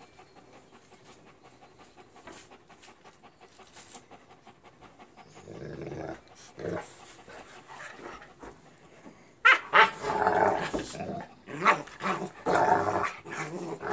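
A Bernese mountain dog puppy and a Leonberger play-fighting. For the first few seconds there is only quiet panting and small clicks, with a short growl about six seconds in. From about nine and a half seconds in come loud bursts of playful growling and yapping.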